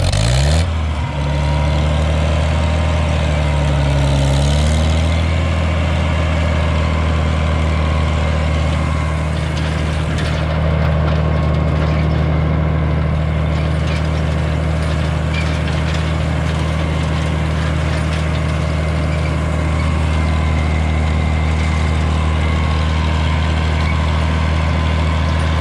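Old tractor engine rising in pitch in the first second, then running steadily at full throttle while pulling a hay rake in second gear. Its transmission is stuck and will not shift out of that gear.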